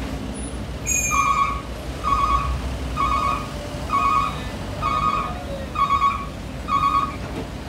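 A heavy vehicle's reversing alarm beeping seven times, about once a second, over the low running of diesel engines.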